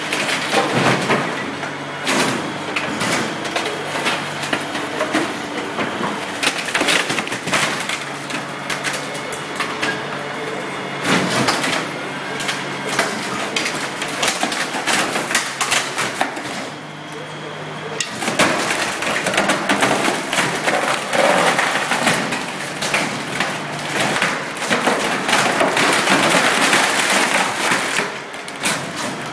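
Wooden desk being crushed by a machine: wood cracking and splintering again and again over the machine's steady low hum. The cracking eases briefly past the middle, then comes back denser and louder.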